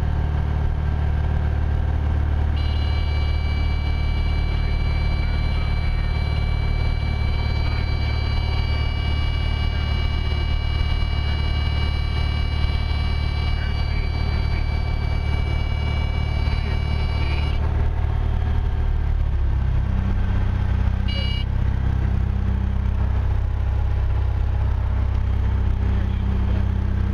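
Cessna 172A's six-cylinder Continental O-300 engine and propeller droning steadily as heard inside the cabin in flight. A steady high-pitched tone sounds over it from a few seconds in until about two-thirds of the way through, briefly comes back shortly after, and the engine note shifts lower around the same time.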